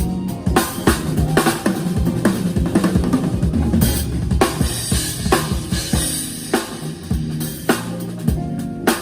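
Drum kit played fast and busy: rapid snare and bass drum hits with rimshots, building into dense fills, with cymbal crashes ringing through the middle.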